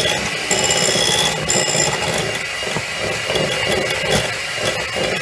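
Electric kitchen mixer running steadily, beating cake batter as flour is added.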